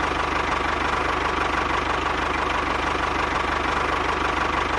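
Engine running steadily with a fast, even knocking pulse.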